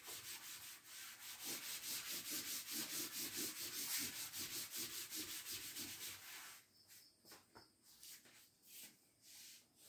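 A cloth wiping chalk off a chalkboard in quick, rhythmic back-and-forth strokes. The rubbing dies down about two-thirds of the way through, leaving a few fainter wipes.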